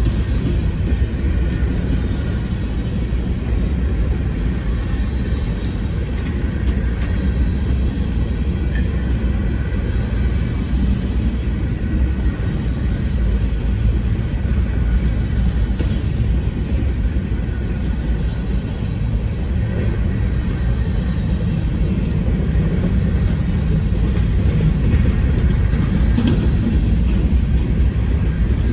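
Covered hopper cars of a grain train rolling past at close range: a steady rumble of steel wheels on the rails.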